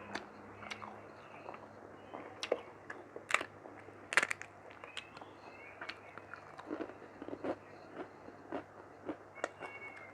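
Close-up eating sounds of mutton curry with rice: chewing with irregular wet mouth clicks and smacks, the loudest about three and four seconds in.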